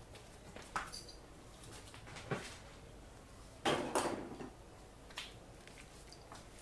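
A few light knocks and clatters of objects handled on a workbench, the loudest a short clatter a little past the middle.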